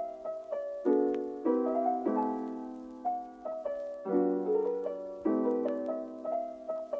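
Background music of struck chords, a new one about every second, each dying away before the next.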